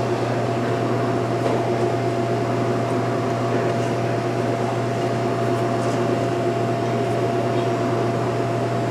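Steady hum of restaurant kitchen machinery: a constant low drone with a fainter, higher steady tone, and a few faint light clicks over it.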